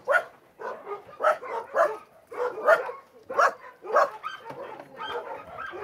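Dogs barking: about seven short, sharp barks at uneven intervals, loudest in the first four seconds, then quieter.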